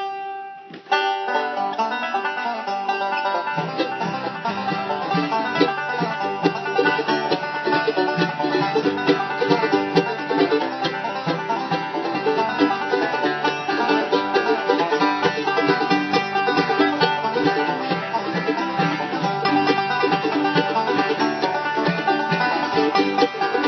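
Banjo being picked: one ringing chord at the start, then a fast, continuous run of picked notes from about a second in.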